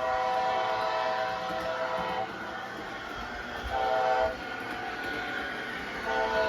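Horn of a Bachmann HO-scale ALC-42 model's DCC sound decoder, played through the model's small speaker: a long blast, a short blast, then another long blast starting near the end, over the locomotive's steady engine sound.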